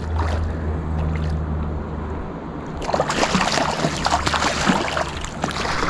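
Water splashing and sloshing, starting about three seconds in, after a low steady rumble.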